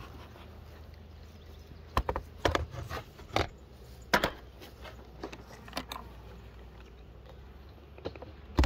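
Wooden beehive equipment being handled: several sharp knocks and clacks of hive boxes and a hive tool, the loudest near the end, over a low steady hum.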